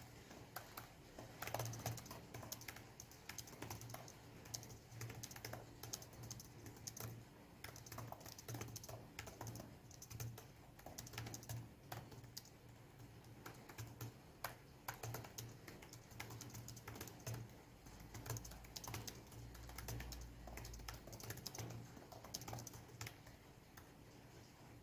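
Fast, continuous touch-typing on a Lenovo IdeaPad V330 laptop's chiclet keyboard: a quick, irregular stream of light key clicks that stops near the end.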